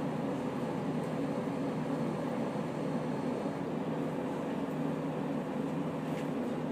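Steady low hum of a diesel railcar's engine idling, heard inside the passenger cabin, with a few faint clicks.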